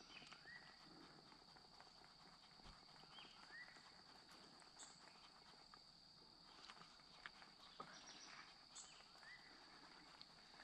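Near silence: faint outdoor ambience with a steady high hum, short rising calls repeating every few seconds, and a few faint clicks.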